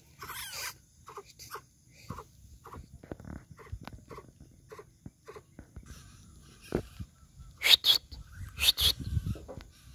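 Javan coucal calling, a run of short repeated notes, followed near the end by a few loud sharp sounds.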